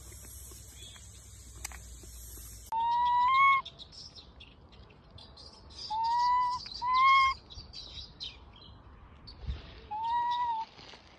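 Young macaque giving five short, clear whistle-like coo calls, each rising slightly at the end: two in quick succession, another two a few seconds later, then one more near the end. A steady hiss fills the first few seconds before the calls.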